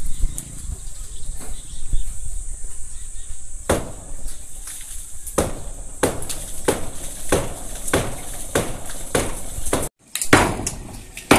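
Hammer striking old wooden roof rafters to knock them loose for removal, in a quick run of sharp blows about three a second that starts a few seconds in.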